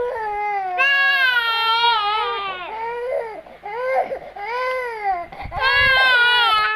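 Baby crying hard in long, loud, pitched wails broken by shorter cries, a long wail about a second in and another near the end. It is a hunger cry from a very hungry baby wanting his milk.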